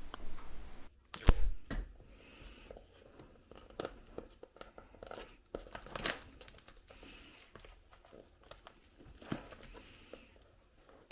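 A sealed product box being opened by hand: packaging tearing and crinkling in short scattered rustles and clicks, the sharpest about a second in.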